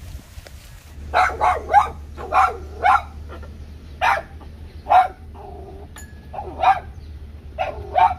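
Dog barking repeatedly: about ten short barks, some in quick runs of two or three.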